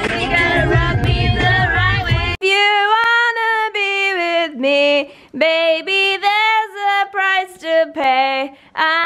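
A pop song with a strong bass line plays with a woman's voice singing over it, then cuts off suddenly about two and a half seconds in. After that a woman sings alone without accompaniment, held melodic phrases broken by short pauses.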